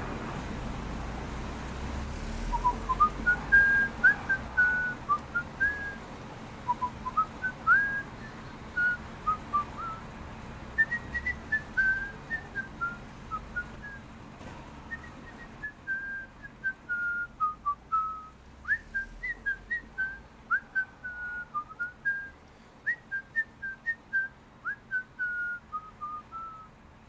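A person whistling a tune: a single line of short notes that steps up and down in phrases. It runs over faint street background that drops away about halfway through.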